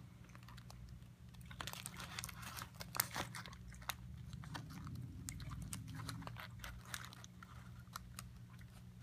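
Close-up chewing of a mouthful of crispy breaded chicken sandwich, with many short, irregular crunches and crackles.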